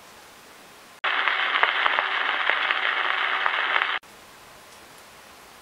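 An abrupt three-second burst of loud static-like hiss with faint steady tones and crackling clicks through it. It cuts in about a second in and cuts off sharply, over a low background hiss.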